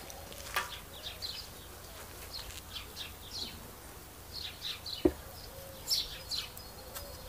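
Small birds chirping repeatedly in short, high, falling notes, with one sharp click about five seconds in.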